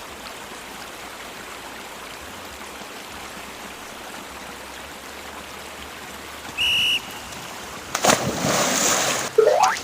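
Steady hiss of running water. About two-thirds of the way through comes a short high beep. Near the end a loud rushing splash-like noise starts, with a rising whistle just before it ends.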